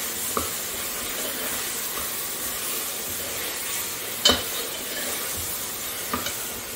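Raw mutton sizzling in ghee and tomato-onion masala in a pressure cooker as a steel ladle stirs it in. A few light clinks of the ladle on the pot, with one sharp clink about four seconds in.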